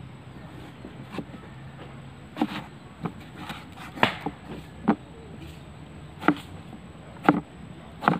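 Cleaver chopping through an eggplant onto a plastic cutting board: about eight sharp chops, unevenly spaced about a second apart.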